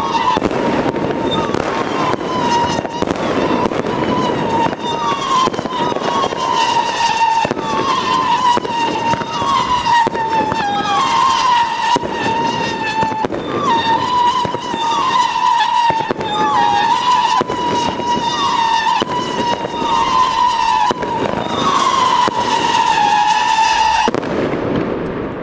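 Many fireworks going off together: continual crackling and bangs. Over them runs a steady whistling tone whose pitch flicks up about once a second, and it fades out near the end.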